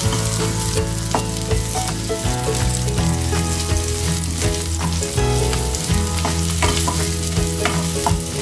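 Onion and garlic sizzling steadily in hot oil in a nonstick pan, stirred with a wooden spoon that scrapes and knocks against the pan several times.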